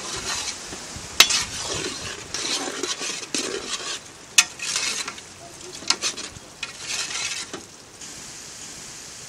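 Metal skimmer ladle stirring mutton and onions frying in oil in a large metal pot: scraping and clanking against the pot, with several sharp clinks, over the sizzle of the meat. The meat has cooked down to the stage where it fries in its own fat and oil. The stirring stops near the end, leaving a steady sizzling hiss.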